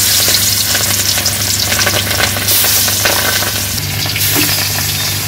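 Pieces of boal catfish, freshly put into hot oil in a kadai, frying hard: a loud, steady sizzle full of crackles and spits.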